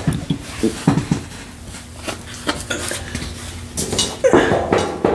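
Irregular knocks, clicks and rustling as a cap is taken down from a wall hook and swapped for the one being worn, close to a desk microphone, with the loudest handling near the end.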